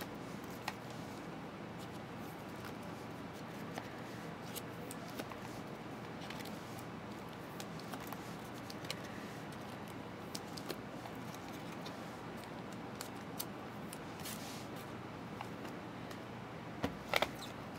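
Light rustling and scattered soft clicks of trading cards being handled and sorted by hand, over a steady background hiss, with a quick cluster of sharper clicks near the end.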